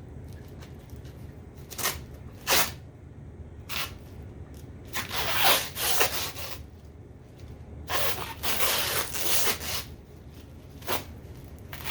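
Wooden pieces and tools being handled on a workbench: a few sharp knocks, and two longer stretches of rubbing and scraping.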